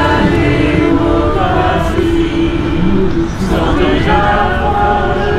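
A small group of amateur voices singing together in unison, unaccompanied.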